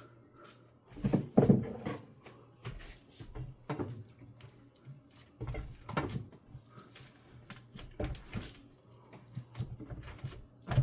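Irregular squishing and light handling sounds of raw ground meat mix being pressed and shaped into a non-stick loaf pan, in short bursts a second or two apart.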